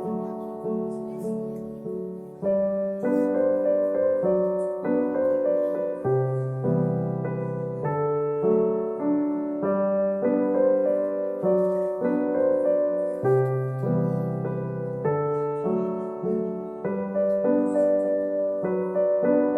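Piano music: notes and chords struck and left to fade, over a low bass note that changes every couple of seconds.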